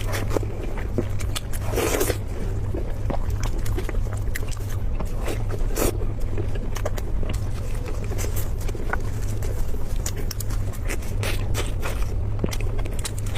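Close-up eating sounds: irregular chewing, smacking and crunching clicks from a person's mouth over a steady low hum.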